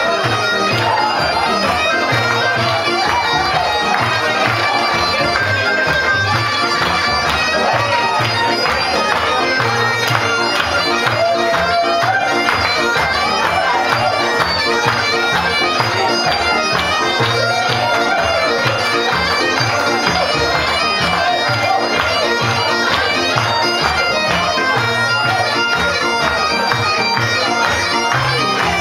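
Live ceilidh dance music: a reedy, sustained melody line over a steady, pulsing bass beat.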